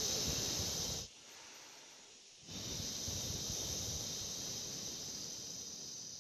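A man's long breathy "heeee" exhalation, the Triple Warmer sound of the Six Healing Sounds qigong practice. One exhalation ends about a second in, and after a short pause a second long one starts about two and a half seconds in and slowly fades.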